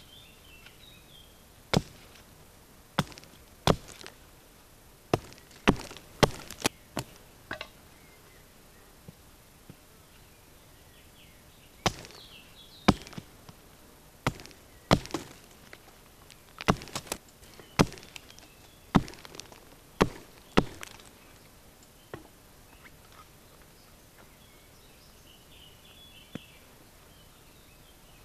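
Small hatchet chopping into a wooden stick held against a log: sharp, short wooden knocks in irregular groups, about twenty blows, with pauses between the groups.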